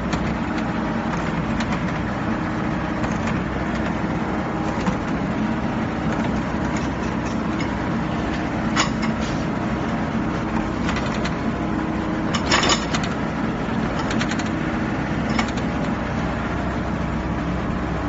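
Excavator's diesel engine running steadily under hydraulic work, heard from inside the cab, with a few short sharp knocks, the clearest a little after halfway.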